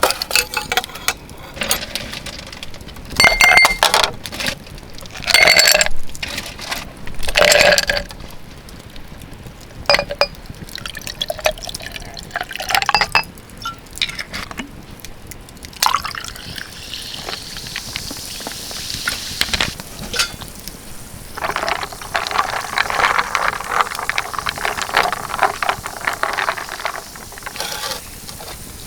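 A few ringing clinks of tableware, then liquid poured into a container for several seconds near the end.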